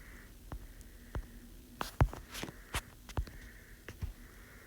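52-inch Harbor Breeze Palm Breeze ceiling fan running on high speed: a faint steady hum, with a run of sharp clicks about twice a second.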